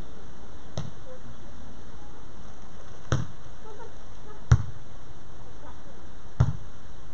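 Beach volleyball being struck by hand during a rally: four sharp smacks, one to two seconds apart, the third the loudest, over a steady background hiss.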